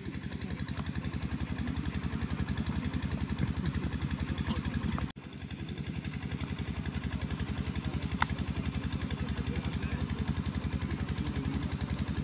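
An engine running steadily with a fast, even pulsing throb. It cuts out for an instant about five seconds in, and there is one sharp click a little after eight seconds.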